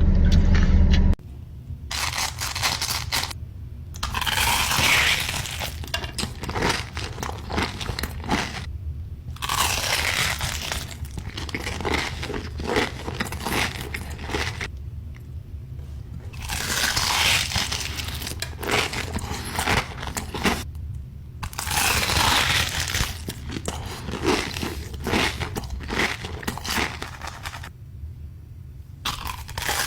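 Close-miked crunching and chewing of crispy fried chicken tenders, in bouts of several seconds with short pauses between bites.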